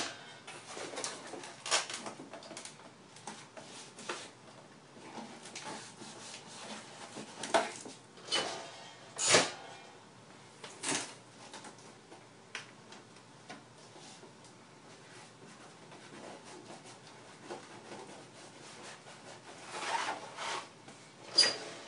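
Corrugated cardboard being handled and folded up into a box: irregular knocks and thuds of the cardboard against the table and itself, with rubbing and scraping between them.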